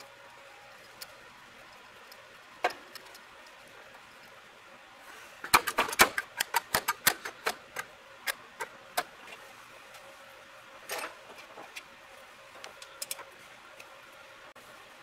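Sharp metallic clicks and taps from hands and parts at the throttle linkage of a rebuilt Rochester Model B carburetor: a single click a couple of seconds in, then an irregular run of a dozen or so louder clicks over about four seconds, and a few lighter ticks near the end.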